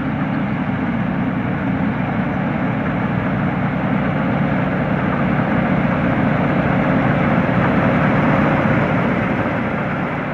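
Thai Seng Yont rice combine harvester running steadily under load, its engine and threshing machinery making a continuous loud hum and rush.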